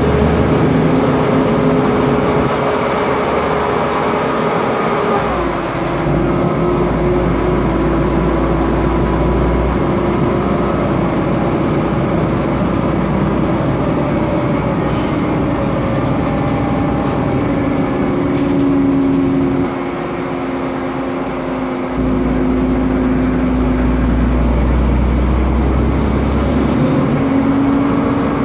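Mercedes-Benz Conecto CNG city bus heard from inside the cabin, its Mercedes-Benz M 936 G turbocharged six-cylinder gas engine and cooling fan running loudly while driving. A steady whine drops in pitch about five seconds in and shifts several more times, and a deep drone swells twice.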